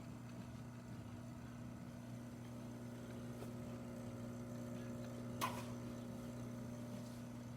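Jura Impressa J6 super-automatic espresso machine's pump humming steadily as it brews a shot of espresso, with one sharp click about five seconds in.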